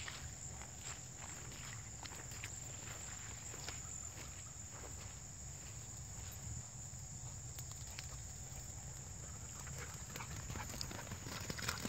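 Footsteps brushing and crunching through tall grass, many small irregular steps, over a low wind rumble and a steady high-pitched drone.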